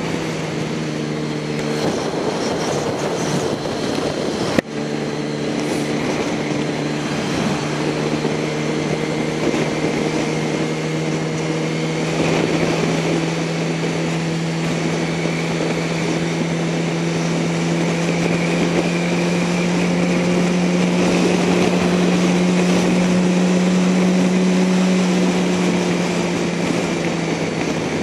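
Motorcycle engine running at a steady cruising pitch under wind rush and tyre hiss on a wet road. There is a single sharp click about four and a half seconds in, and the engine note rises a little past the middle before easing off near the end.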